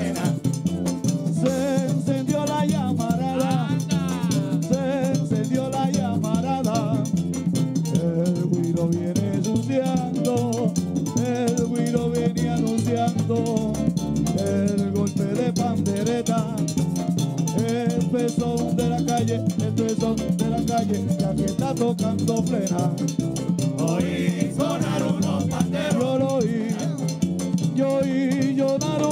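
Live Latin band playing: several men singing in unison into microphones over hand frame drums (panderetas), a scraped güiro and conga drums, with a steady driving rhythm.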